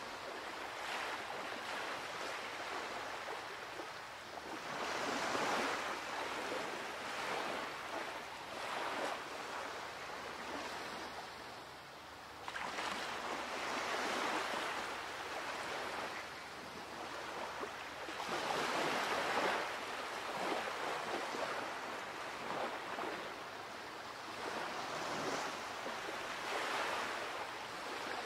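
Ocean surf: waves washing in and drawing back, swelling and easing every several seconds.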